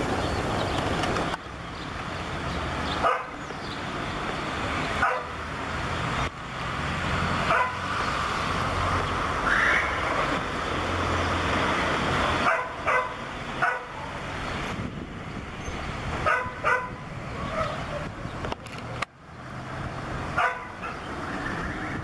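Airbus A321 jet airliner flying overhead, its engines making a steady roar that is heaviest in the first half. A dog barks on and off over it, in short sharp barks every few seconds.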